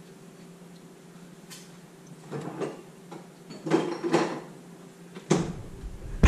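Kitchen clatter: several knocks and rattles of things being handled, in clusters about two and four seconds in, then a sharper knock, over a steady low hum.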